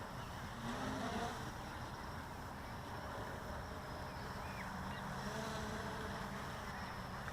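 Blade 350 QX quadcopter's motors and propellers running steadily, a continuous hum and rushing noise.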